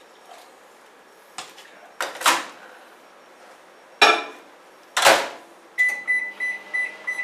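A few loud clunks and knocks of kitchen handling. Near the end comes a quick run of microwave keypad beeps, and the microwave oven starts running with a low hum.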